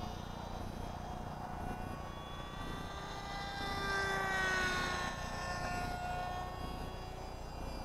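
Radio-controlled model airplane in flight, the whine of its motor and propeller. The whine swells about four seconds in and drops in pitch as the plane passes by.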